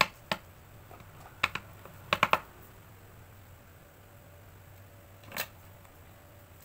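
Light, sharp taps and clicks of small paper notepad blocks being handled and set down on a paper cutter's board: a few single taps, a quick cluster of three about two seconds in, and one more near the end.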